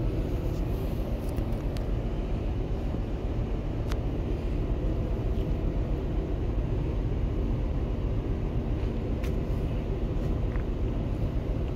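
Steady low rumble of a ship's machinery in a cabin, with a faint constant hum and a few light clicks.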